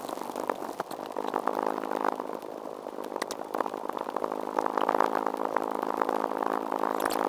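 Sped-up sound of a run recorded on a GoPro Hero2 and played fast-forward: footsteps and body movement blur into a steady buzzing hum with rapid ticks.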